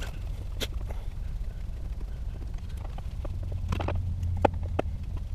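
Screwdriver clicking and scraping on the screws of an outdoor outlet's plastic weatherproof cover as it is taken apart. Scattered sharp clicks, several close together about four seconds in, over a steady low rumble.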